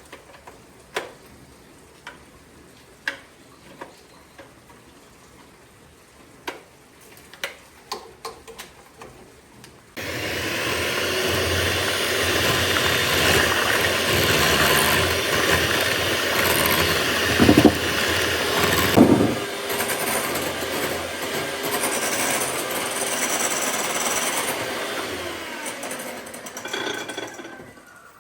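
A few light knocks, then about ten seconds in a loud motor-driven tool starts abruptly and runs steadily, stopping shortly before the end.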